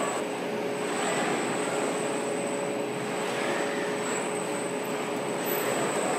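Steady car-factory machinery noise: a continuous hum and hiss with a couple of steady whining tones.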